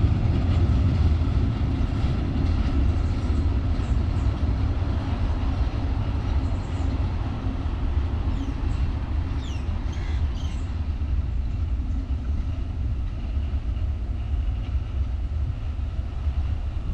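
Freight train of empty flat wagons rolling away along the track: a steady low rumble that slowly fades as the end of the train recedes. A few short high chirps come about halfway through.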